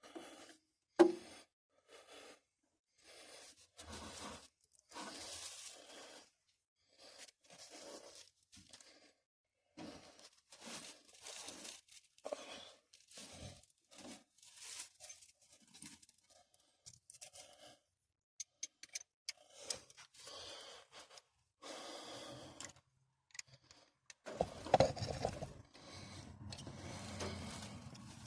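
Scattered scrapes, rustles and small clinks of hand tools and parts being handled during work on a truck, with a louder, longer scrape about three-quarters of the way through.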